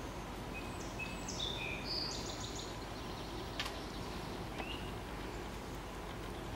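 A small songbird singing a short phrase of high whistled notes about half a second in, with a single short rising chirp a few seconds later. Steady outdoor background hiss throughout, and one sharp tick near the middle.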